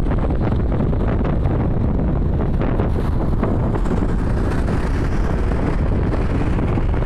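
Steady wind noise buffeting the microphone of a camera on a moving motorcycle, mixed with the bike's engine and road noise.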